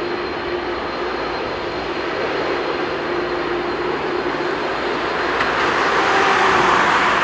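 Boeing 787-9 airliner's Rolls-Royce Trent 1000 jet engines roaring steadily as it climbs out after take-off, with a steady low hum and a faint high whine in the roar. The roar grows louder over the last couple of seconds.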